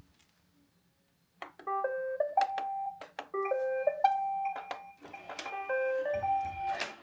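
Roomba robot vacuums playing their electronic start-up tunes: three short runs of beeped notes one after another, with a few sharp clicks among them.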